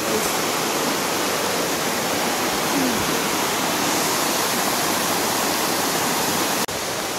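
Small woodland waterfall cascading over rocks into a stream: a steady rushing of water, with a sharp, momentary break near the end.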